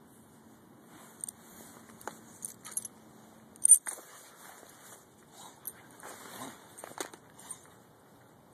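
Dog collar tags jingling and clinking in irregular short bursts, with one loud sharp clink about three and a half seconds in.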